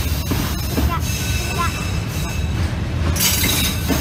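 Container freight train passing close by: a steady low rumble with the wheels knocking over the rail joints, and a burst of hiss about three seconds in.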